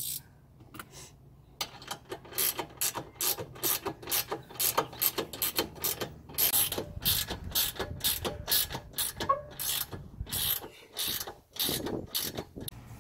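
Ratchet wrench clicking in quick back-and-forth strokes as a bolt on a seat swivel base is turned. The clicking starts a second or two in and goes on in an uneven rhythm of several clicks a second.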